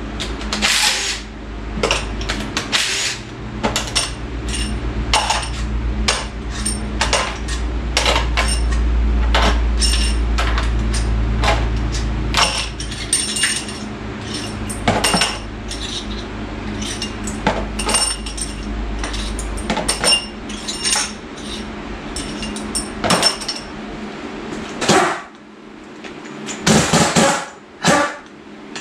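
Engine teardown on a 283 small-block Chevy: a cordless impact driver fitted with a 3/8 adapter runs in short bursts, loosening fasteners on the cylinder heads, with metal clinks and clatter as parts are pulled off and set down. A low steady hum sits underneath and stops about twenty seconds in.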